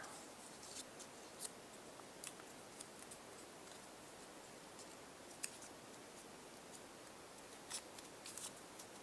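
Faint handling of a paper strip as it is folded and creased by hand, with a few light, scattered clicks.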